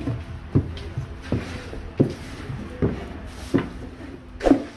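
A tool repeatedly knocking against the jaggery pan, about seven knocks with a short ring each, one every half to three-quarters of a second, as the thickened gur is worked while it sets.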